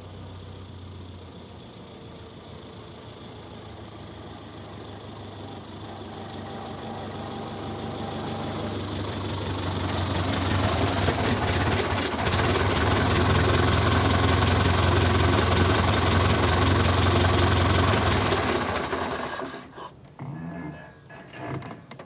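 Car engine running steadily, growing louder over the first ten seconds or so, holding, then cutting off about twenty seconds in, followed by a few short knocks near the end.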